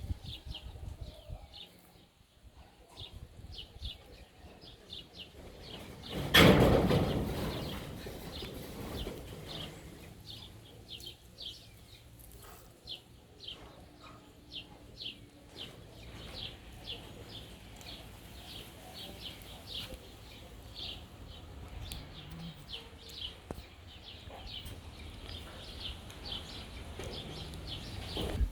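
Small birds chirping over and over in short high calls, with low background rumble. A sudden loud burst of noise comes about six seconds in and fades over a couple of seconds.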